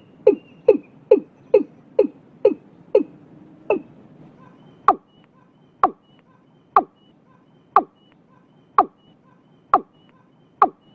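Watercock (cúm núm) calling: a series of short, deep notes, each sliding down in pitch. They come about two a second at first, then after a short pause about one a second.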